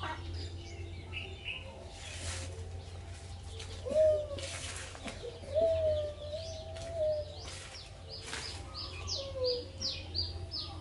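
Birds calling: a few lower, drawn-out wavering calls near the middle, then a quick run of short, high, falling chirps, several a second, in the last couple of seconds.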